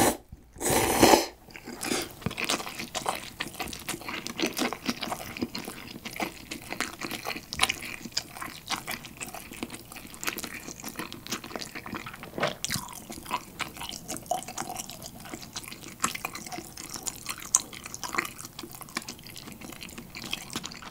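Two loud slurping pulls of broth and noodles straight from a cup-ramen cup at the start, then close-miked chewing of soft instant noodles with many small wet mouth clicks.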